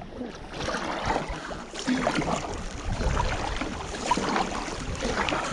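Water splashing and lapping around a plastic sit-on-top kayak moving on a river, with wind rumbling on the microphone about three seconds in.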